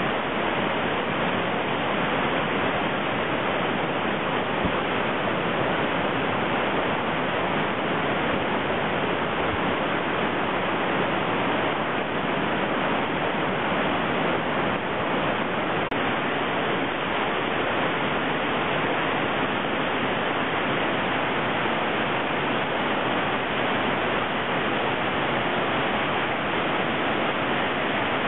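Waterfall and rocky creek cascades rushing, a steady, unbroken roar of falling and tumbling water.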